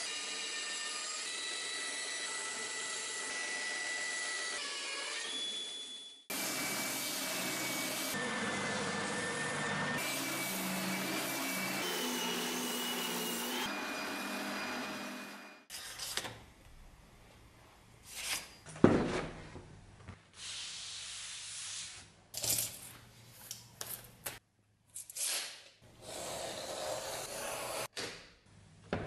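A band saw cutting a sheet of plywood, then an oscillating spindle sander sanding the plywood's edges. In the last part, short separate scraping strokes of a knife cutting leather along a steel rule, with one sharp knock partway through.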